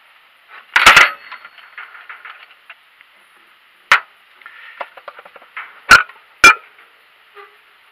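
Steel spanners clanking on metal while the oil centrifuge cover of a YaMZ-238 diesel is undone and the tools are set down. There is a loud clang about a second in, a sharp knock near four seconds, and two more sharp metal knocks about half a second apart near six seconds.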